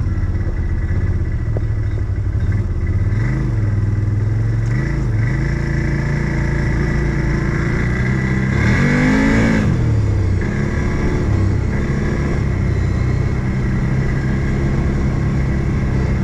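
Odes 800 off-road vehicle's engine running at a steady idle. It is blipped briefly twice, about three and five seconds in, then revved up and back down once about nine seconds in.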